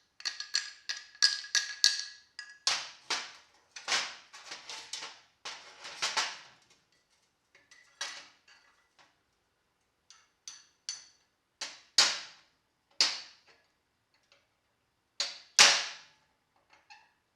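Metal-on-metal hammer strikes knocking the old bushings out of a 1971 Camaro door hinge: a run of quick, ringing taps for about six seconds, then after a short pause single harder blows a second or more apart.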